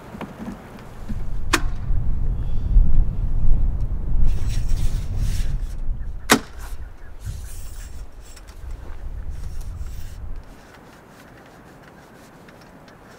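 Roof-rack awning on a Jeep being swung open: a low rumbling rush of fabric and air, with two sharp clicks of the awning's arms, one about a second and a half in and one about six seconds in. The rush stops abruptly near the end, leaving a quiet background.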